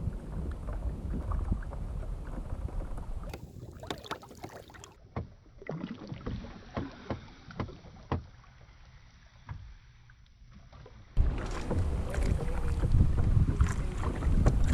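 Wind buffeting the microphone with a low rumble. In a quieter stretch in the middle it gives way to a run of light clicks and knocks, then comes back suddenly louder near the end.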